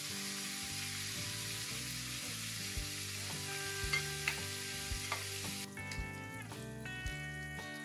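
Chicken pieces deep-frying in hot oil, a steady dense sizzle, while a metal slotted spatula stirs them and clinks a few times against the pan. The sizzle cuts off about two-thirds of the way in, leaving soft background music.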